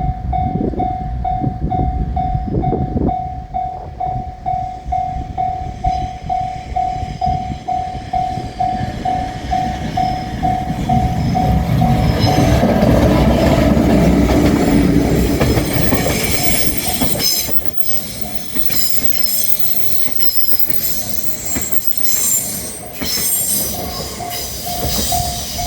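Japanese level-crossing bell dinging about twice a second, then a train passing close by: a loud rush of running noise, followed by rhythmic wheel clatter over the rail joints. The crossing bell can be heard again near the end.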